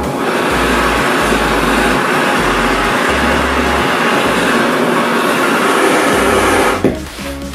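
Three gas blowtorches burning with a steady loud roar as their flames heat a steel knife blade red-hot. The roar cuts off suddenly near the end, and a low musical bass line pulses underneath.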